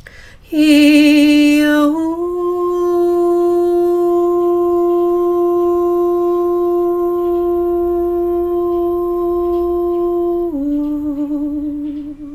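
A single voice toning sustained notes: a brief wavering note, then one long steady tone held for about eight seconds, dropping near the end to a lower wavering note.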